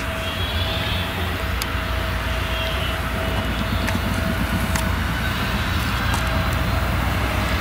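Claas Jaguar 970 forage harvester's MAN V8 diesel engine running as the machine drives along the road: a deep steady rumble with a steady whine over it, growing slightly louder as it comes nearer.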